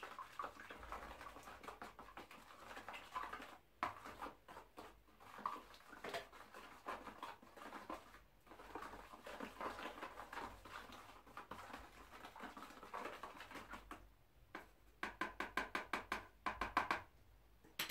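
Wooden stick stirring and scraping home-made linseed-oil and charcoal paint in a plastic tub, a soft continuous scratching with scattered clicks. Near the end the stirring speeds up into a quick run of sharp clicks.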